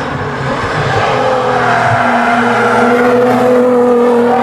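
Nissan GT-R's twin-turbo V6 engine running hard at speed, a loud, steady note that climbs slowly in pitch.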